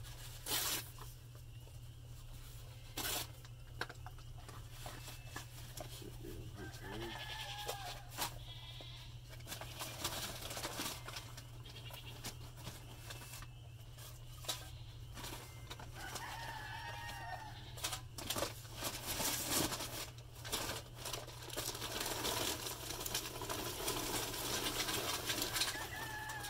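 Goats bleating now and then, a few separate calls, over a scatter of sharp clicks and knocks and a steady low hum.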